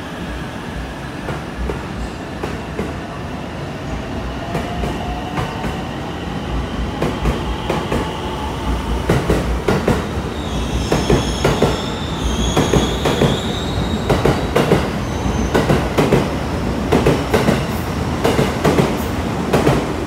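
A 2016-built JR West Shinkaisoku electric train pulling out of the station. Its VVVF inverter whine rises in pitch over the first several seconds, then the wheels clatter over rail joints faster and faster as it gathers speed, with a high wheel squeal about halfway through.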